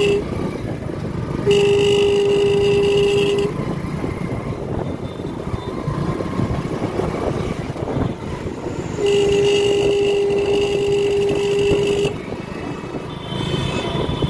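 Two held vehicle horn blasts, each one steady note: one about two seconds long near the start and a longer one of about three seconds past the middle. Under them is the steady running of a scooter and street traffic.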